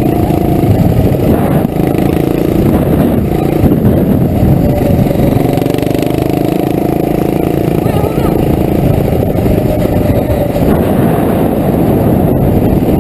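Small single-cylinder mini-bike engines (212cc Predators, one with a straight-pipe header) running hard at riding speed. The engine note rises and falls as the throttle changes.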